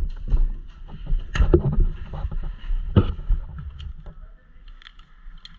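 Airsoft gunfire: two sharp cracks about a second and a half apart, with smaller ticks, over rustling and scuffling from the players moving.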